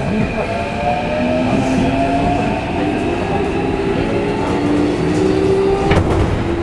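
Keikyu 1500 series train's Mitsubishi IGBT-VVVF inverter and traction motors whining as the car runs, the tones rising in pitch as the train picks up speed, over wheel and rail rumble. A sharp clack of the wheels over a rail joint comes near the end.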